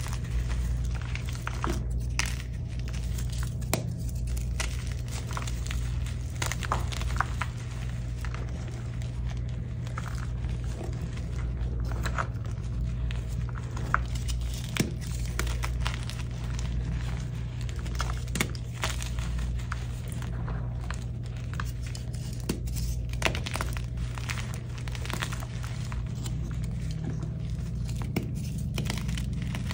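Hands squeezing and crumbling soft, dyed blocks of gym chalk: a continuous soft crunching and crumbling, dotted with many small sharp snaps as pieces break. A steady low hum sits underneath.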